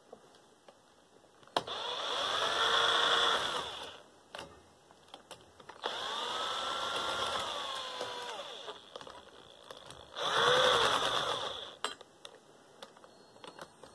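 Power drill spinning in three bursts, each rising in pitch and then winding down, as it drives screws out of a desk fan's casing.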